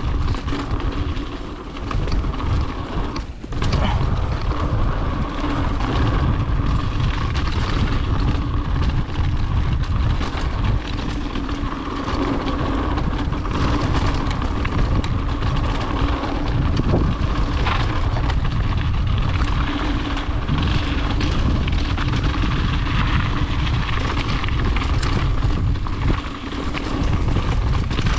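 Mountain bike riding down a dirt trail: tyre and bike rattle under heavy wind noise on the microphone, steady apart from a brief dip about three seconds in.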